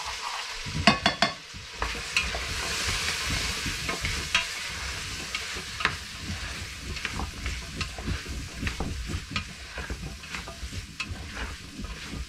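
Onion, carrots and chickpeas sizzling as they fry in oil in a pot, while a spoon stirs them, scraping and knocking against the pot many times at an uneven pace; a quick cluster of knocks about a second in is the loudest.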